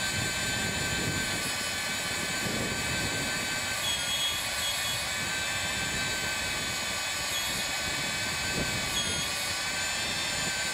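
Hougen HMD150 magnetic drill running under load, its motor and gearing driving an annular cutter through thick steel plate. The sound is a steady, even whine with several high fixed tones.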